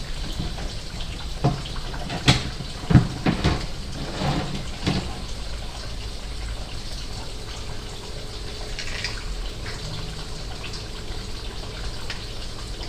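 Steady running or trickling water, with a cluster of short sharp knocks between about one and a half and five seconds in.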